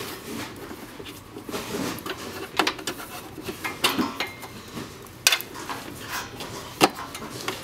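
Irregular plastic clicks and rattles as a cable and its connector are fed through the opening under the housing of a printer's auto take-up reel unit, with a light handling rustle between them. Two sharper clicks come in the second half.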